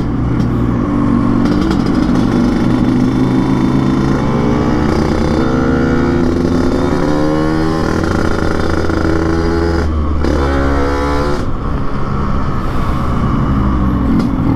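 Yamaha RX King two-stroke single-cylinder engine, with an open 'kolong' expansion-chamber exhaust and open air filter set up for a raspy 'ngorok' note, being ridden hard. Its revs climb several times as it accelerates.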